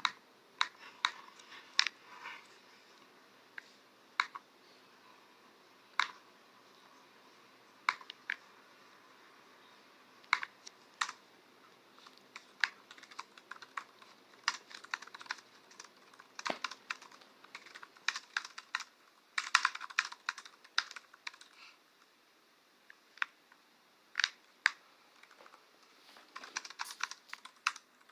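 Typing on a computer keyboard: irregular key clicks, sometimes single keystrokes a second or more apart and sometimes quick runs of rapid keystrokes.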